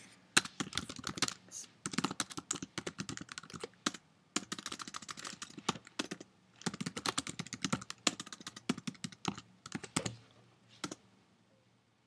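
Typing on a computer keyboard: quick runs of key clicks with short pauses, stopping about ten seconds in with one last stray click.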